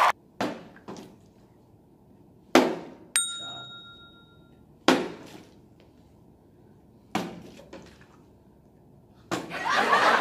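A partly filled plastic water bottle being flipped and landing or toppling on a table: about seven separate knocks and thuds, one about three seconds in with a short ringing clink. Near the end people in the room break into loud laughing and shouting.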